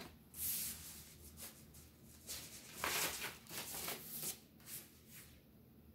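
Paper sleeve and vinyl LP rustling and scraping as the record is handled and slid into its inner sleeve: a run of short rustles, loudest about three seconds in, stopping near the end.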